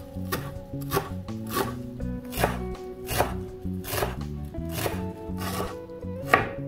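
Chef's knife chopping fresh dill on a bamboo cutting board: a steady run of sharp knocks of the blade on the wood, about one every three-quarters of a second, the loudest near the end.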